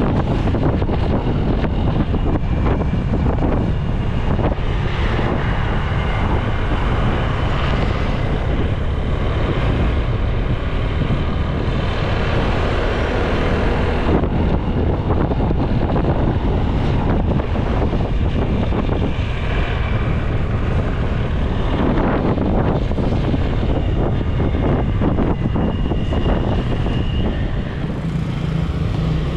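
Riding a motorbike: a steady low rumble of engine, road and wind noise on the camera's microphone.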